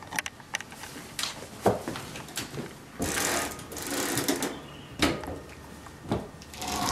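Clicks and knocks as a rider gets onto a bicycle mounted on a stand, then a whir that builds near the end as pedaling starts spinning the rear wheel and the car alternator it drives.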